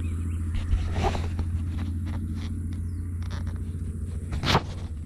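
Steady low hum like a running motor, with a few sharp knocks and handling clicks; the loudest knock comes about four and a half seconds in.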